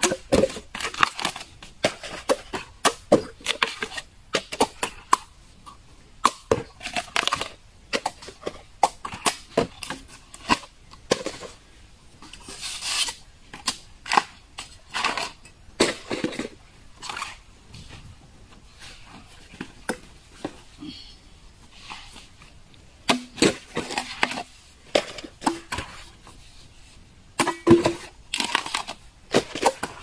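Cleaver chopping and trimming fresh bamboo shoots: a run of sharp, irregular chops and cracks, a few of them longer rasping strokes.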